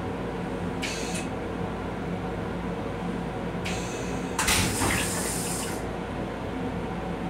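Flush of an M7 railcar toilet: short hisses of rinse spray about a second in and near four seconds, then a louder rush of water into the stainless-steel bowl lasting about a second and a half, over the railcar's steady hum.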